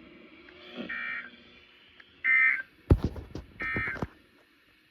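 EAS end-of-message data tones from a NOAA Weather Radio broadcast: three short, identical buzzy bursts about 1.4 s apart, marking the end of the alert. A few sharp clicks sound between the second and third bursts.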